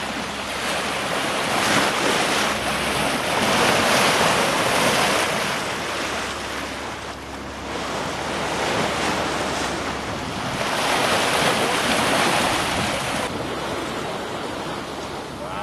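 Sea water rushing and splashing along the hull of a sailing yacht under way in choppy seas, swelling and easing in slow surges every few seconds, with wind buffeting the microphone.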